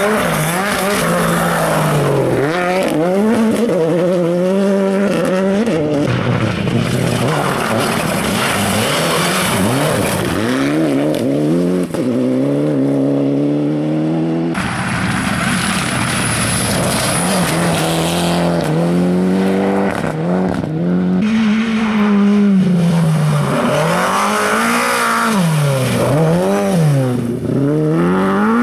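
Rally cars on a gravel stage, one after another, including a Ford Fiesta rally car and a Lada 2107: engines revving hard and falling back again and again as they change gear and lift for corners. The sound changes abruptly about halfway through as a new car takes over.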